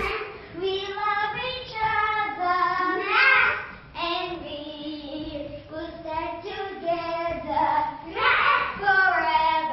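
A child's voice singing a melody.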